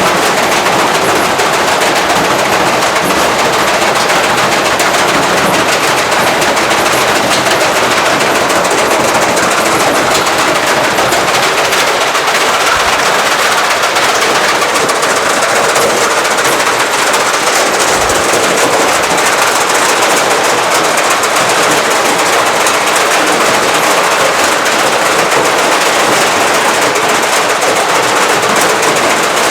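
Beko washing machine in a violently unbalanced spin, its drum and cabinet banging and rattling in a rapid, continuous clatter as the machine shakes itself apart.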